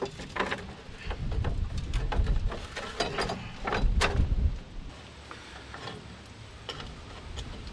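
Scrapes, clicks and knocks of the dozer's sheet dash cowl being worked loose and lifted off the instrument panel, with a low rumble underneath for the first few seconds. A few lighter clicks follow near the end as tools go to the gauges.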